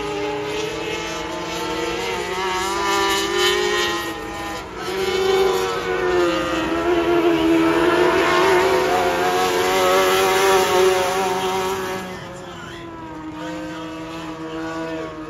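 Jr Sportsman dirt-track race cars' engines revving under racing, pitch rising and falling as they work through the turns. They are loudest in the middle as cars pass close by, then drop away about twelve seconds in.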